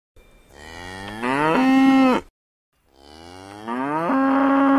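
A cow mooing twice. Each moo lasts about two seconds, rises in pitch, then holds level and cuts off abruptly.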